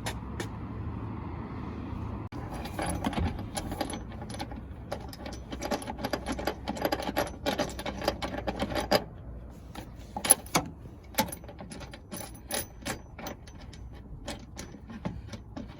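Ratchet wrench clicking rapidly as bolts are turned in a car interior. It stops about nine seconds in, followed by scattered metallic clicks and knocks.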